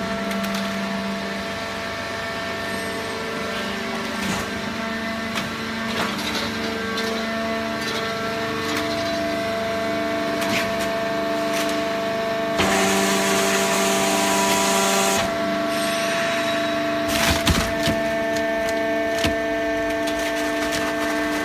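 Hydraulic cardboard baler running, with a steady hum and the crackle and snapping of cardboard being pressed. A louder hiss comes in for about two and a half seconds near the middle, and a few sharp cracks follow.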